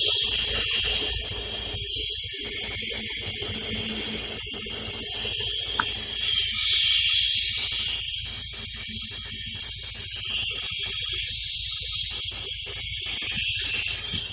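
Mazda RX-8's rotary engine idling warm under a loud, high hiss that swells and fades, which the owner takes for a vacuum leak.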